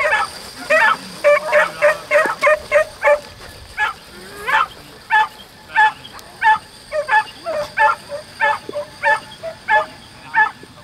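A dog barking in quick, repeated high yaps, about two or three a second, with a brief pause a few seconds in.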